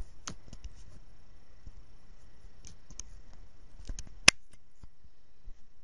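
Scattered light clicks of laptop keys and touchpad buttons, with one sharp, loud click a little over four seconds in.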